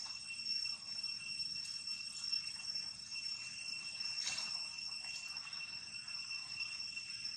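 Insects droning in a steady, unbroken high-pitched tone, with a brief rustle about four seconds in.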